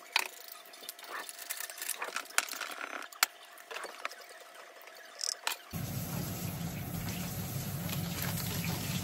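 Kitchen prep sounds: the clicks and knocks of utensils and a bottle, and a pour of seasoning into beaten egg in a plastic measuring jug for tamagoyaki. About six seconds in this gives way to a steady, low rushing noise at the gas stove.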